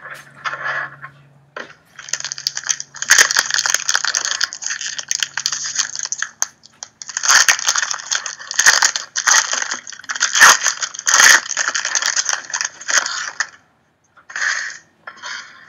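Foil trading-card pack wrapper crinkling loudly as it is handled and torn open, in two long stretches with a short pause between, then a couple of brief crinkles near the end.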